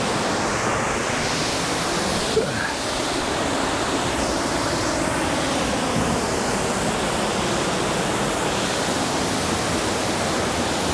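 Waterfall on Jonathan Run in high water: a steady, loud rush of falling water, with one short knock a little over two seconds in.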